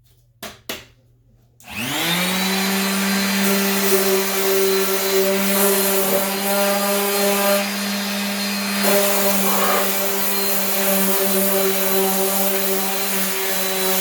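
Two short clicks, then a power sander starts about a second and a half in, spinning up quickly to a steady hum that runs on while it sands body filler on a truck fender.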